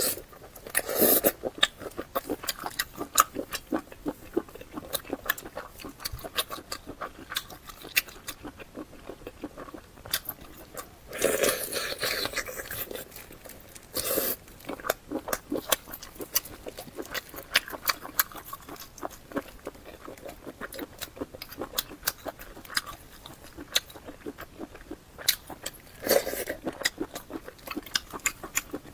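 Close-miked eating sounds: wet chewing and smacking mouth clicks, with a few louder, longer spells of chewing or biting about a second in, around the middle and near the end.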